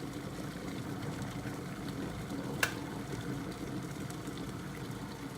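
Water at a full boil in a Cosori electric kettle: steady bubbling, with one sharp click about two and a half seconds in.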